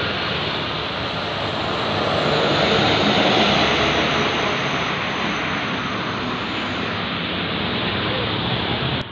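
Medium-size tour bus driving past: engine and tyre noise that swells to a peak about three seconds in and then stays steady, cutting off suddenly near the end.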